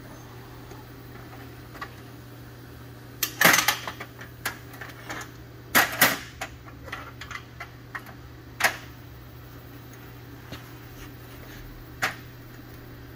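Aluminum exhaust parts and a TIG torch being handled on a steel welding table, giving scattered metallic clinks and clanks, loudest in two clusters a few seconds apart, over a steady low hum.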